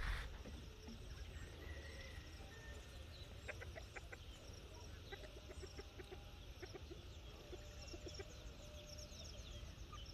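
Free-range yard chickens clucking faintly, a scattering of short clucks through the middle of the stretch.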